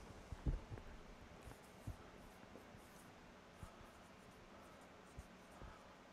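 Dry-erase marker writing on a whiteboard: faint strokes and squeaks, with a few soft knocks.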